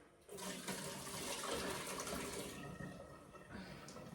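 Water running into a kitchen sink, a steady rush that eases off about two and a half seconds in.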